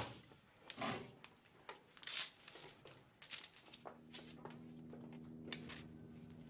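A student getting up from a wooden school desk: a knock at the start, then scattered scraping and rustling of the chair, books and clothing. A faint low steady hum comes in about four seconds in.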